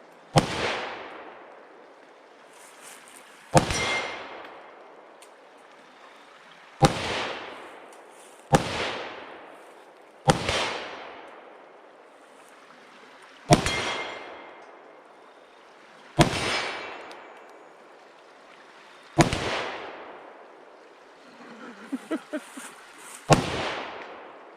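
Nine gunshots in slow, uneven fire, about two to three seconds apart, each followed by a fading echo. A few small clicks come shortly before the last shot.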